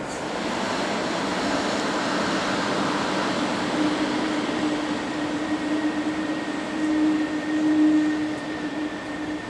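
Electric train running in a station hall: a steady rumble with a steady humming tone that grows stronger from about a second and a half in and is loudest near the end.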